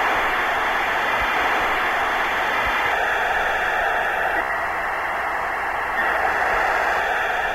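Television static sound effect: a loud, steady hiss of noise.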